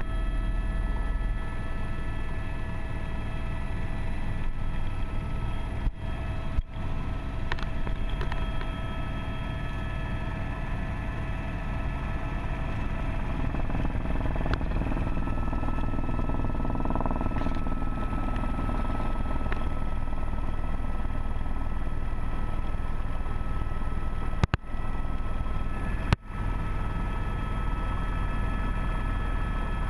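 Steady helicopter cabin noise: the engine and rotor run as a low drone with a steady whine on top. The sound cuts out for an instant four times.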